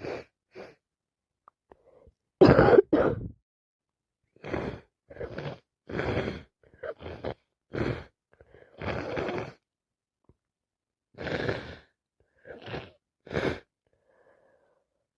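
A woman with sinusitis in a long fit of about a dozen sneezes and coughs, each a short explosive burst, the loudest a double one about two and a half seconds in.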